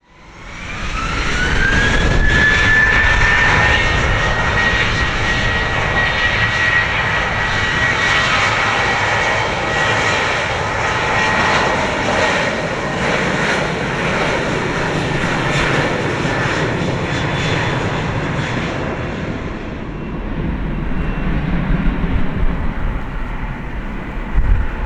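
Boeing 737-800's CFM56-7B turbofan engines at takeoff thrust: a whine rises over the first two seconds and then holds steady over a loud jet roar. Near the end the high hiss fades as the airliner climbs away.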